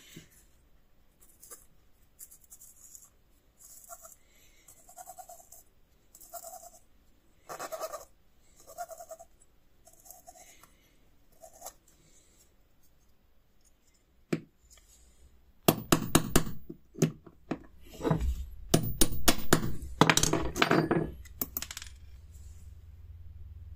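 Small metal parts clinking and clattering sharply on a wooden workbench, several ringing clinks in quick succession in the second half; before that, faint rhythmic creaks about once a second from a hand tap being turned into a small doorbell part. A low motor hum comes in near the end.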